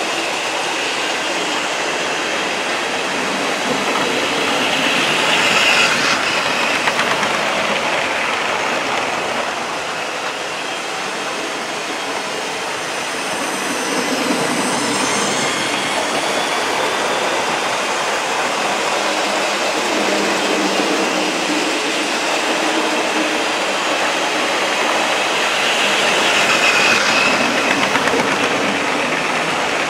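OO gauge model trains running on a layout: a steady rolling rumble of wheels and motors on the track, swelling twice as a train passes close, about six seconds in and again near the end.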